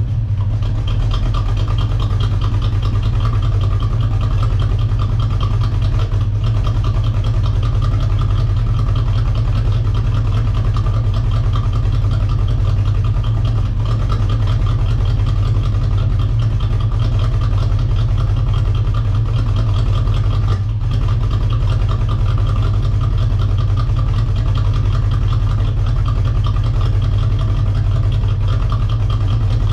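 1985 Corvette's 350 TPI V8 idling steadily, just after a rev has dropped back. It is running poorly because the tank is almost out of gas.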